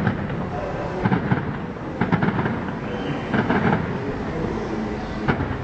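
Aerial fireworks shells bursting overhead: clusters of sharp bangs about once a second, the last one near the end.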